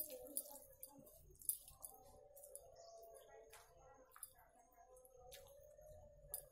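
Hand mixing rice and curry on a steel plate: faint soft squishes and a few sharp little clicks of fingers against the metal, over a faint steady hum.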